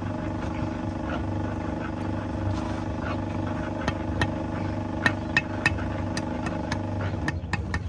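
Hammer tapping a hollow concrete block down into fresh mortar: a run of about ten sharp knocks in the second half. Under it runs a steady engine-like hum that drops away at the very end.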